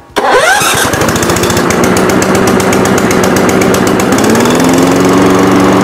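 A Cobra DG450 135cc overhead-valve petrol lawn mower engine, electric key-started on choke, catches almost at once and rises quickly to a steady, loud running speed. Its pitch steps up slightly about four seconds in.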